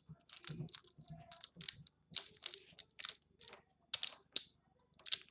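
Small plastic Beyblade parts being handled and fitted together: a run of irregular light clicks and scrapes.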